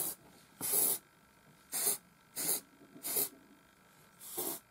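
Aerosol deodorant can sprayed in five short hissing puffs, each a fraction of a second long, spaced roughly half a second to a second apart.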